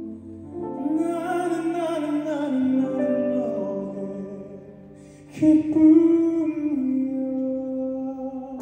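Male classical-crossover voices singing a slow song live with keyboard and band accompaniment, heard from far back in a reverberant concert hall. The music thins out about four seconds in, then a single voice comes back strongly with a held, wavering note.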